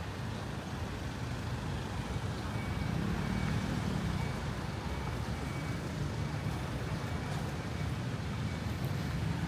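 City street traffic: a steady low rumble of car and motorcycle engines with tyre noise, swelling a few seconds in as vehicles pass close by.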